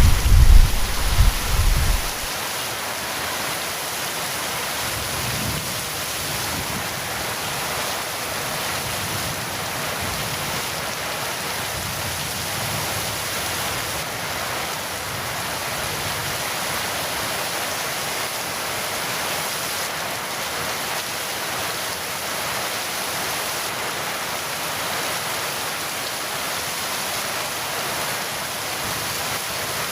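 Heavy rain falling steadily. A rumble of thunder dies away in the first two seconds.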